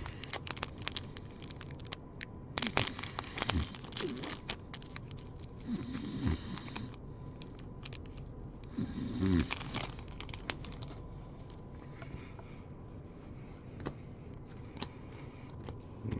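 Foil trading-card pack wrapper crinkling and tearing as it is opened by hand, in several short spells of crackling with quiet gaps between.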